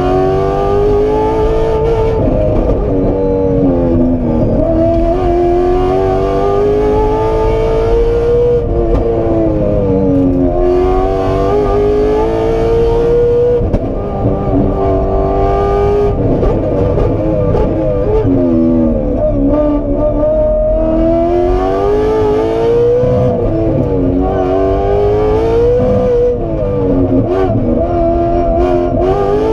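Aston Martin Vantage rally car engine at racing pace, heard from inside the cabin. The revs climb through the gears, drop away under braking and downshifts, then climb again, several times over.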